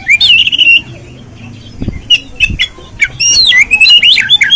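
Oriental magpie-robin singing loudly in phrases of varied whistled notes, pitch glides and sharp clicks. A short phrase comes near the start, and a longer, rapid run fills the second half.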